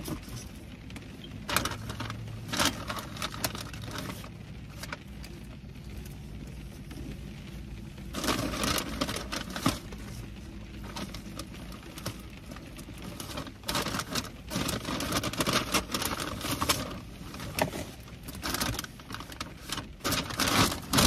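Paper takeout bag and food packaging rustling and crinkling in irregular bursts, with scattered sharp clicks as food is unpacked and handled.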